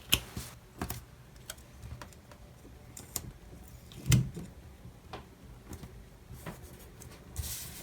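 Small clicks and taps of a sticker and paper planner pages being handled on a desk, with one louder knock about four seconds in and a short rustle near the end.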